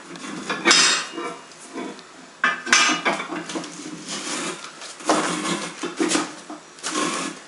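Steel tire bar clanking and scraping against the steel wheel rim and manual tire changer as it levers the tire bead onto the rim: several sharp metal knocks with scraping in between.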